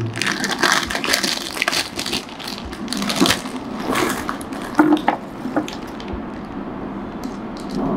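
Plastic jewellery packets crinkling and rustling as they are torn open and handled, with small clicks as gold rings are shaken out onto velvet. The crackling thins out over the last couple of seconds.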